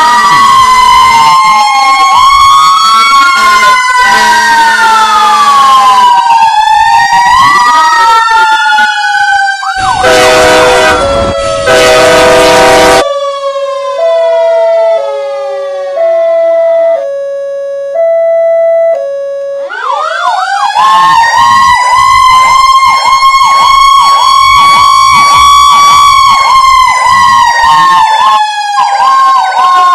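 A mix of emergency-vehicle sirens and horns. For the first ten seconds several sirens sweep up and down over one another. A loud horn blast lasts about three seconds, followed by a two-tone hi-lo alternating about once a second while a siren winds down beneath it. About twenty seconds in, a siren winds up and holds a high pitch with a fast warble.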